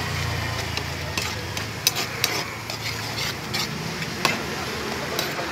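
Instant noodles being stirred with a long metal spoon in a shallow metal pan on the stove, the noodles sizzling steadily, with sharp scrapes and clicks of the spoon against the pan every second or so.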